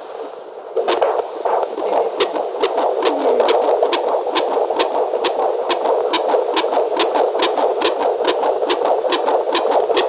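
Fetal Doppler monitor's speaker playing a 32-week fetal heartbeat: a fast, even whooshing pulse of a little over two beats a second. The beats come in strongly after a brief quieter moment under a second in.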